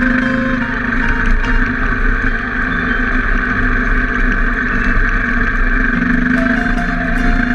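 Enduro motorcycle engine running steadily under load on a climb up a gravel track, mixed with wind and tyre noise on the bike-mounted camera.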